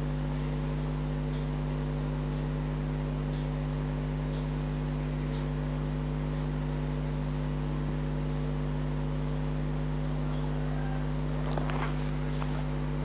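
Chopped garlic and ginger frying gently in hot oil in a kadai, a faint sizzle under a steady low hum with several tones. A couple of faint ticks near the end.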